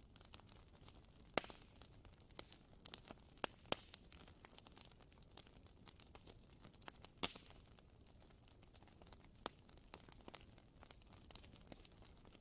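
Wood fire crackling faintly: scattered, irregular sharp pops and snaps over a low hiss, the loudest pops about a second and a half in and about seven seconds in.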